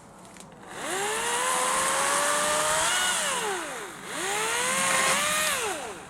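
Battery-powered electric chainsaw whining up to speed, running and winding down, twice in a row.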